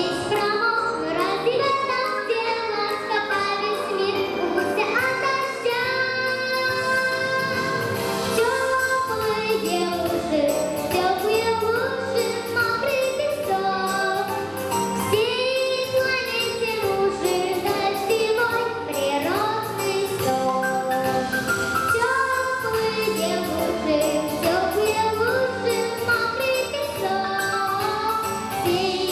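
A girl singing a pop song over a backing track.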